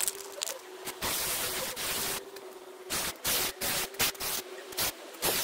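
Irregular bursts of hissing, from a fraction of a second to about a second long, over a faint steady hum.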